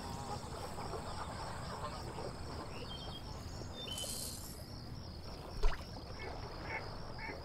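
Marsh ambience: insects calling in a steady pulsing chorus, with a few short bird chirps and one dull thump a little past halfway.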